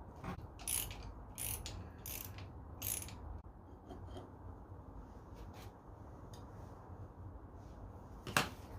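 Hand socket ratchet clicking in a few short runs, then one sharp click near the end.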